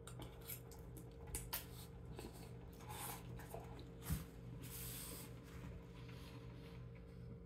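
Faint eating sounds of instant ramen noodles being slurped from a fork and chewed, with a few small clicks and one sharp tap about four seconds in, over a faint steady hum.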